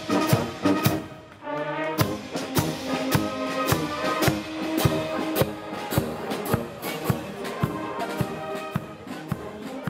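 Brass band playing a march: tubas, horns and trumpets over a steady drum beat of about two strokes a second.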